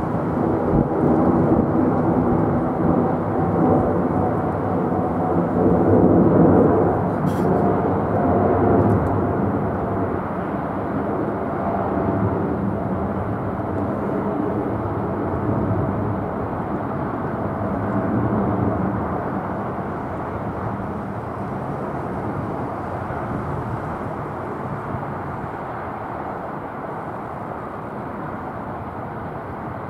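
Jet engines of an ANA Boeing 777 climbing out after takeoff: a deep, steady rumble with faint droning tones. It is loudest about six seconds in, then slowly fades as the airliner pulls away.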